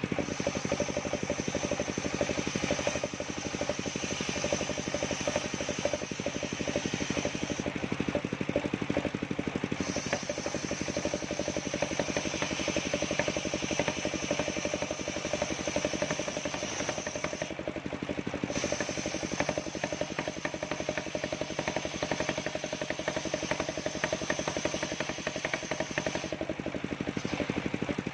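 Engine-driven circular sawmill running as it saws a coconut trunk: a steady engine drone with a high saw whine over it that drops out briefly three times.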